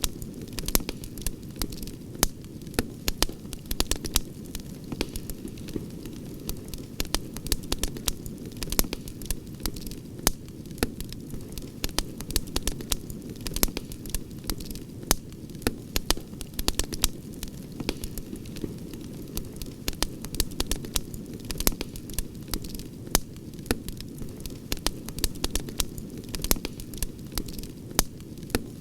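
Wood campfire crackling: frequent, irregular sharp pops and snaps over a steady low rushing noise of the burning fire.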